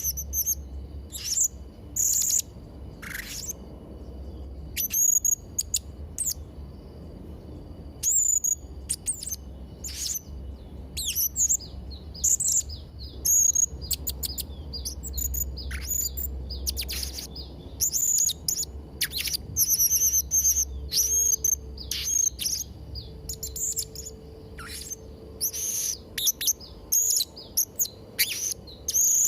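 Serindit (hanging parrot) calling: a long run of short, shrill, high-pitched chirps and quick twittering phrases. The calls are spaced out at first and come thick and fast from about a third of the way in, over a faint low hum.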